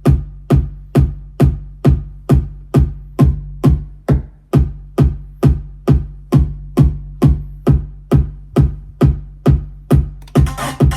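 Eurorack modular synthesizer with Make Noise modules, sequenced by a Five12 Vector, playing a steady electronic kick-drum pulse of about two hits a second, each a sharp attack with a decaying low tone. Near the end a denser layer of higher, noisier percussion and held tones joins in.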